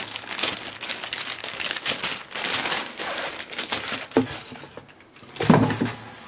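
Clear plastic packaging bag crinkling and rustling as a fabric drawstring backpack is pulled out of it, then a louder bump about five and a half seconds in.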